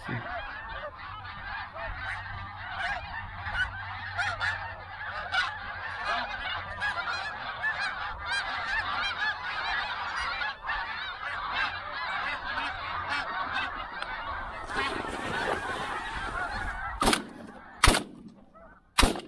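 A large flock of snow geese calling overhead, a dense din of many overlapping voices that thins out near the end. Then three shotgun shots in about two seconds.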